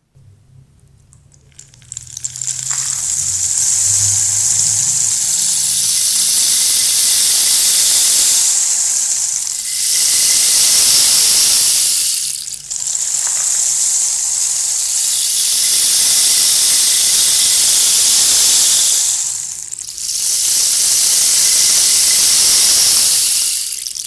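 Water running in a loud, steady, hissing rush that starts about two seconds in and breaks off briefly three times.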